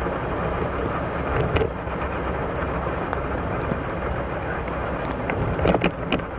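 Steady rumble of a vehicle in motion, heavy at the low end with a faint engine hum, and a few brief clicks.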